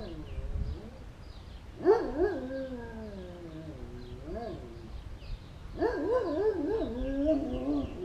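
An animal's long, wavering, whine-like cries: one starts sharply about two seconds in and runs for a couple of seconds, and a second one begins about six seconds in, with the pitch swooping up and down.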